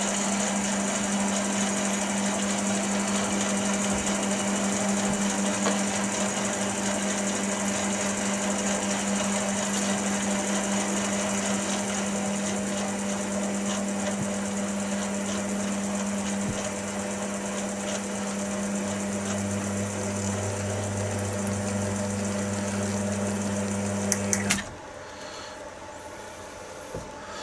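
Chester DB10 lathe running with its spindle turning a brass workpiece while a small tap is fed in from the tailstock chuck: a steady motor hum, with a lower hum joining after about 19 seconds. A few seconds before the end there are a couple of clicks and the lathe cuts off suddenly.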